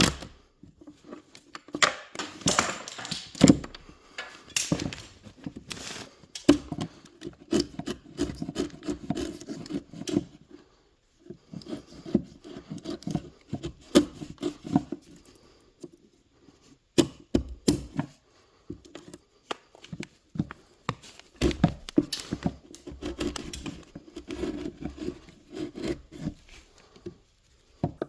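Wood being handled and worked: irregular knocks, taps and scraping, with a few brief pauses.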